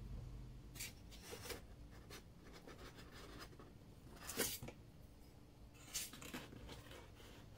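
Faint rubbing and scraping of packaging being handled, in a few short strokes, the loudest about four and a half seconds in.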